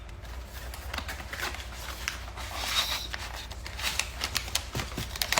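Hands opening a small cardboard blind box and handling the packaging inside: irregular light rustles and clicks of card and paper.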